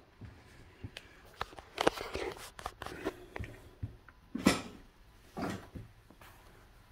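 Coat hangers clicking and sliding on a closet rod while fur and leather coats rustle as they are pushed aside by hand: a series of sharp clicks and scuffs, the loudest about four and a half seconds in.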